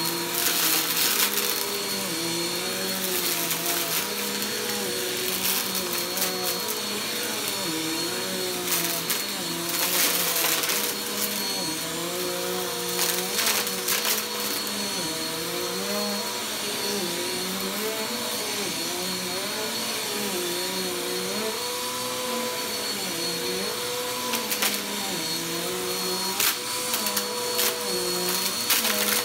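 Upright bagless vacuum cleaner running steadily on shag carpet, its motor note rising and falling with each push and pull. At times, above all near the start and near the end, loose debris crackles and rattles as it is sucked up.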